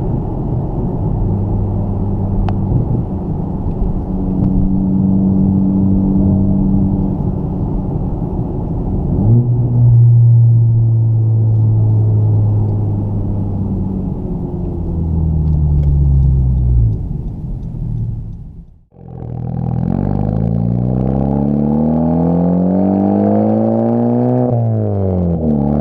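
Honda Civic Type R FK8's turbocharged 2.0-litre four-cylinder running through a Tomei full-titanium muffler: a steady exhaust drone at cruising speed, then a deeper drone that falls in pitch as the car slows. After a brief break in the sound, the engine note climbs steadily under acceleration, drops sharply at a gear change near the end, and climbs again.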